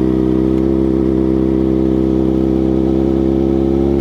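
2006 Suzuki GSX-R600 sportbike's inline-four engine running steadily at an even pitch, heard through a helmet-mounted mic.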